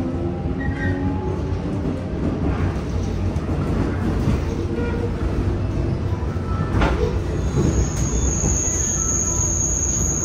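Seoul Metro Line 4 train with Mitsubishi GTO-VVVF traction, heard from inside the car while running: a steady rumble of wheels and motors, with faint shifting inverter tones in the first second or so. Near seven seconds in there are a couple of knocks, then a high steady wheel squeal sets in and stops near the end.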